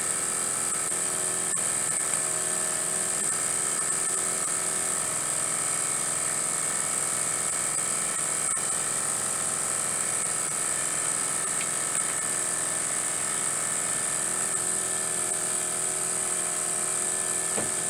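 Small model steam engine running fast off its boiler: a steady whirring buzz with a constant high hiss of exhaust steam.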